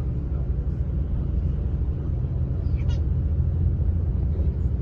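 A vehicle engine running steadily with a low rumble, and a short high-pitched squeal about three seconds in.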